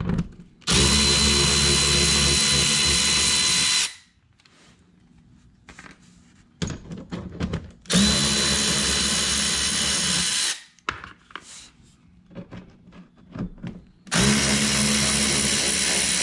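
Cordless electric ratchet spinning out the bolts of a car's engine under tray, in three steady runs of about three seconds each. Between the runs come short clicks and rattles as the tool is moved from bolt to bolt.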